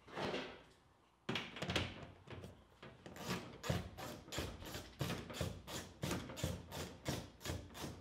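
Ratchet with a T25 Torx bit clicking in a steady rhythm, about three strokes a second, backing out the screw that holds the van's side door handle.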